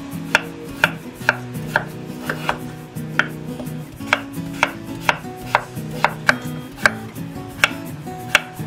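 Chef's knife chopping peeled potatoes on a wooden cutting board: sharp knocks of the blade hitting the board, about two a second and unevenly spaced.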